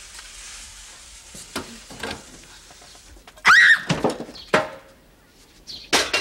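Egg sizzling faintly in a frying pan, then a metal frying pan knocked several times against a stainless-steel sink as egg is tipped out into the sink strainer, with one short loud high squeal about halfway through.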